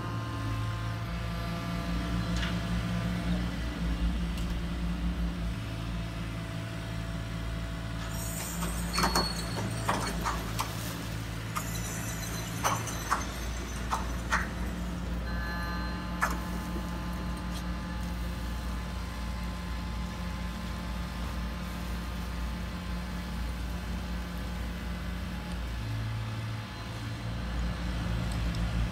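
Hydraulic RC model excavator running, its pump motor giving a steady hum. Several sharp clicks and clatters come in the middle as the bucket works the stones.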